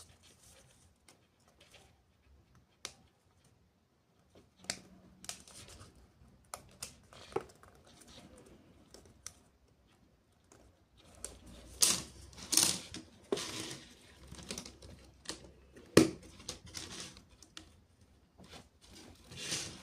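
Hands handling plastic toy parts: scattered light clicks and clacks with some rustling, sparse at first and busier from about halfway, with one sharp loud click near the end.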